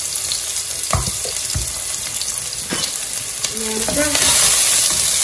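Sliced onions and garlic sizzling in hot oil in a pot, stirred with a spatula that knocks against the pot a few times. The sizzle grows louder about four seconds in.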